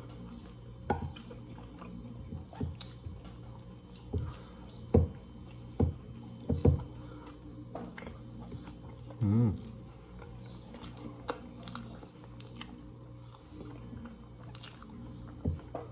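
Close-miked eating with the hands: chewing and wet mouth smacks on sun-dried beef (carne do sol) with rice and farofa, as scattered short clicks. A brief vocal sound about nine seconds in.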